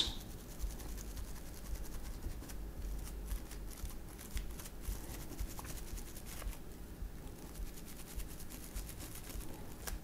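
Toothbrush bristles scrubbing and flicking at a phone's USB-C charging port to dislodge dirt and debris: faint, irregular ticks over a low room hum.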